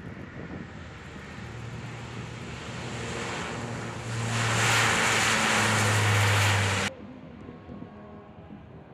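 Blue Angels C-130J Super Hercules turboprops at takeoff power, a steady low propeller drone growing louder as the plane rolls and lifts off past, loudest in its last seconds. It cuts off suddenly about seven seconds in, giving way to a fainter drone of the plane climbing away.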